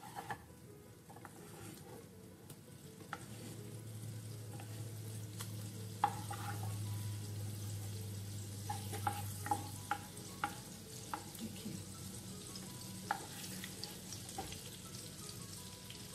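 Butter melting and sizzling in a nonstick pan over a low flame, stirred with a wooden spatula that taps and scrapes against the pan now and then. The sizzle grows louder about four seconds in.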